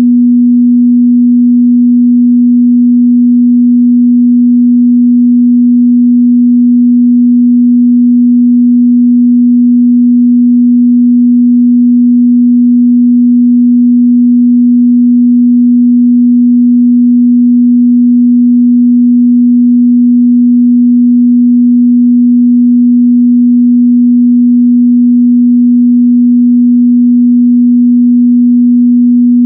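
Steady 243 Hz pure sine test tone, a single loud unwavering mid-bass hum.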